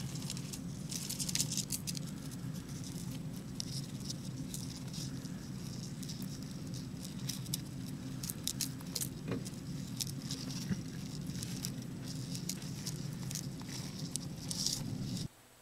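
Scattered light scratching and ticking as a black beetle and a scorpion scrabble against each other on sand inside a plastic tub, over a steady low hum. It stops abruptly near the end.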